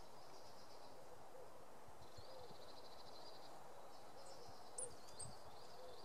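Small songbirds singing several short, high trilled phrases with a few sharp chirps, over faint low cooing and a steady background hiss.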